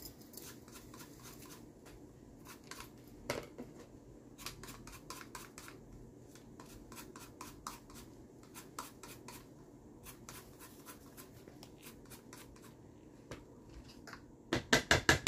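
Lime rind being zested on a handheld zester: irregular light scraping strokes, one a little louder about three seconds in. Near the end comes a quick run of louder knocks.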